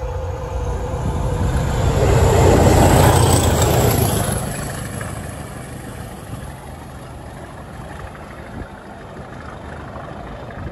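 Diesel locomotive running light past the track, engine and wheels on the rails, loudest about two to four seconds in, then fading as it draws away.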